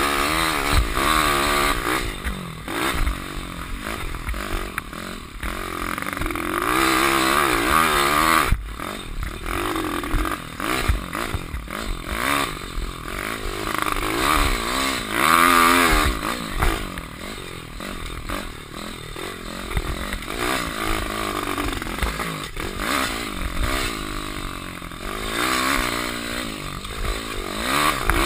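Pit bike's 150cc single-cylinder engine ridden hard, revving up and falling back again and again, its carburettor fitted with too small an idle jet. Wind rushes over the helmet-mounted camera throughout.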